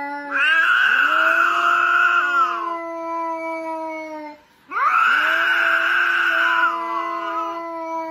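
Cat yowling at another cat nose to nose: two long drawn-out yowls, each swelling into a loud wavering middle, then trailing off in a steadier, quieter tone.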